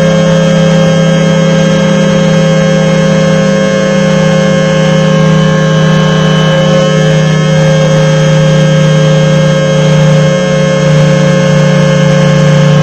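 Federal Signal 2T22 two-tone electromechanical siren sounding a loud, steady chord of tones, its pitch holding throughout.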